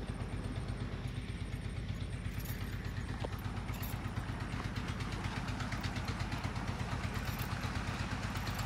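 Engine of a tube-well pump running steadily, a low even hum with a rapid regular thump.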